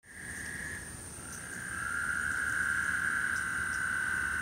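Chorus of frogs calling steadily in a dense, continuous drone, growing louder about a second and a half in, with a thin high steady insect-like buzz above it.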